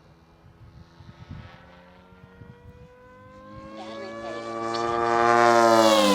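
Custom Comet EVO electric RC helicopter with an Xnova motor making a high-speed pass. Its whine is faint at first, then swells steadily louder while rising slightly in pitch, and it is loudest near the end, where the pitch starts to drop sharply as it goes by.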